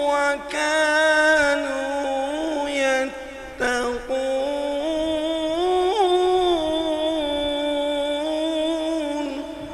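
A male qari reciting the Quran in a melodic, drawn-out style, holding long ornamented notes. There is a short pause for breath about three and a half seconds in, and the voice fades away near the end.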